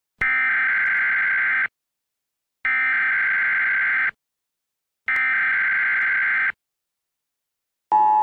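Emergency Alert System header: three screechy bursts of digital data tones, each about a second and a half long with a second's gap between them. Near the end the steady two-note attention tone of the alert begins.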